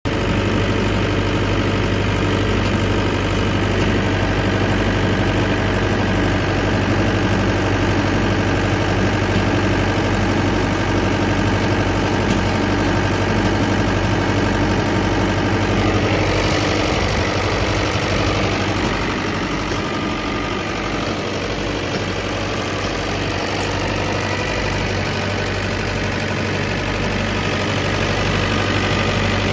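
Diesel engine of a Mahindra 25 kVA generator set running steadily under load from a water load bank, with a constant low hum. About halfway through a brief hiss rises, then the level drops slightly.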